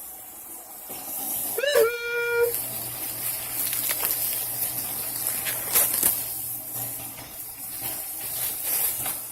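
Kitchen sounds: a steady high hiss of butter frying in a hot pan, with water running from about a second in. A short sung note about two seconds in.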